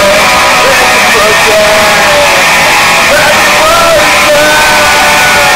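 Loud music: a melody line or voice wavering in pitch over a dense, noisy backing.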